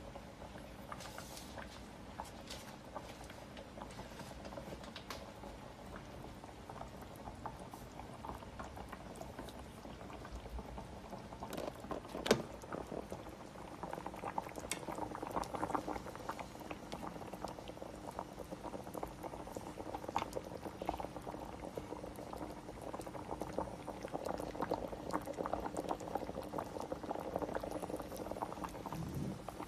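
A pan of fish and pickled mustard-green soup at a rolling boil, a steady bubbling crackle that grows fuller and louder about halfway through. One sharp click stands out just before the middle.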